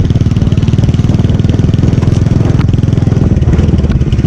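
Motorcycle engine running steadily as the bike rides along, picked up close to its exhaust, a fast even pulsing with a lot of low rumble.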